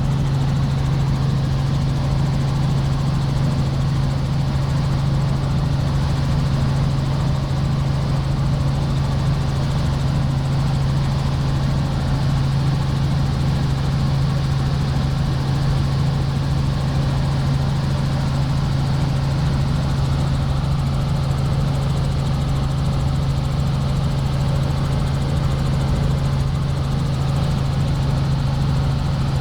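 Tour helicopter in flight, heard from inside the cabin: a loud, steady drone of engine and rotors with a strong, even low hum.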